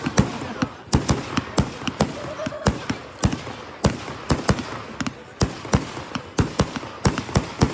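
Fireworks going off in rapid succession: a string of sharp bangs, about three to four a second, with a steady crackling hiss between them.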